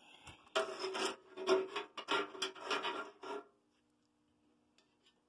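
Rubbing and scraping handling noise, a dense crackle of strokes for about three seconds, stopping well before the end.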